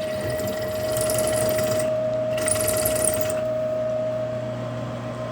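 Milling machine running with a steady whine while its drill bit cuts a tapping hole through a cast iron flywheel hub; scratchy cutting noise comes in about a second in and again around the middle, then eases off.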